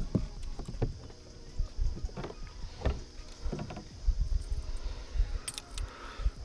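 Knocks and bumps in a small plastic boat, a handful of separate thuds over a steady low hum, with a few light high clicks near the end.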